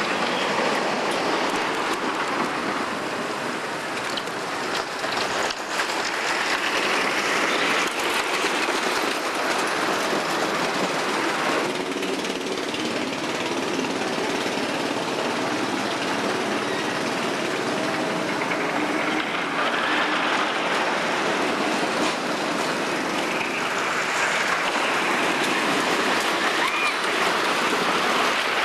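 Wooden roller coaster train running over its wooden track: a steady rushing rumble that swells louder a few times as the cars pass.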